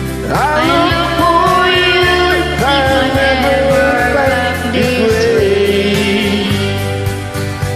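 Music: a slow country-folk ballad in a passage without words, with a gliding lead melody over guitar and sustained low backing.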